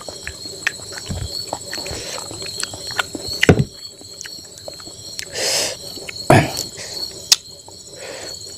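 Close-up eating sounds: fingers mixing rice on a steel plate, with chewing and mouth smacks giving scattered clicks and a few louder smacks. A steady high-pitched cricket chirp runs behind it.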